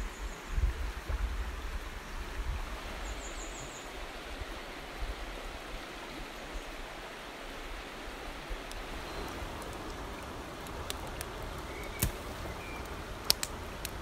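Mountain river flowing over a rocky, stony bed: a steady rushing of water. There are some low thumps in the first few seconds and a few sharp clicks near the end.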